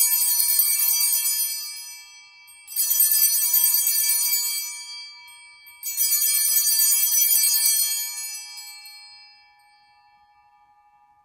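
Altar bells (Sanctus bells) rung three times, each shake ringing out with many high tones and slowly fading. They mark the elevation of the chalice at the consecration.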